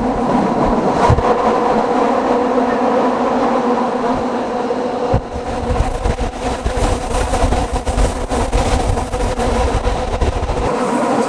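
Rhaetian Railway electric train running along the track, heard from an open carriage window: a steady buzzing hum over the rumble of the wheels and wind, with a few sharp clicks.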